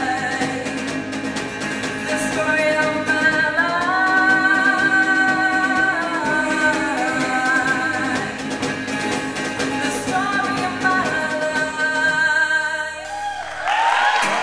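Live female vocal with acoustic guitar accompaniment over a PA, the voice holding long wavering notes. The song closes on a final held note, and applause breaks out in the last second.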